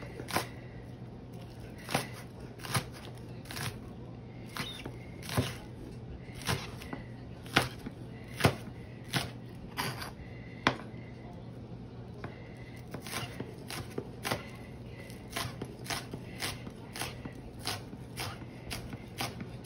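Chef's knife slicing scallions on a plastic cutting board: irregular knife taps on the board, about one or two a second, some louder than others.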